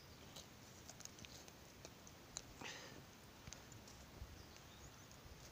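Near silence with faint scattered clicks from a wood campfire, and a brief soft scrape about two and a half seconds in.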